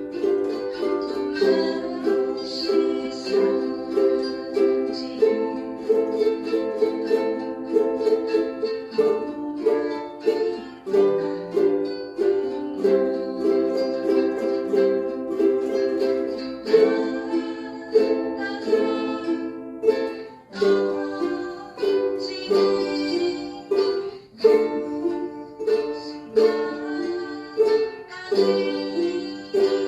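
Ukulele strumming chords in a steady rhythm, playing a song.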